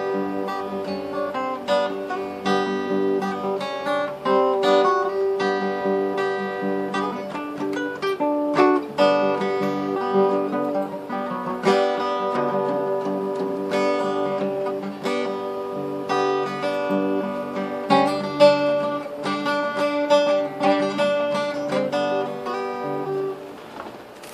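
Cutaway steel-string acoustic guitar fingerpicked in Hawaiian slack key style, with plucked melody notes over ringing bass notes. The playing stops shortly before the end.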